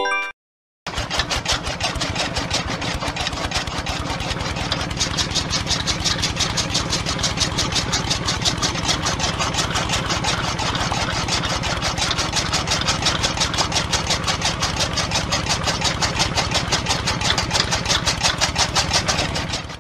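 Small motor of a homemade miniature tractor running steadily with a rapid, even clatter; it starts abruptly about a second in.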